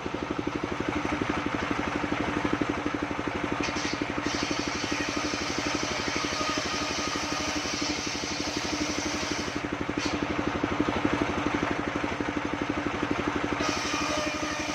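Sawmill bandsaw machine running steadily, a continuous engine-like drone with a fast even pulse and a steady hum.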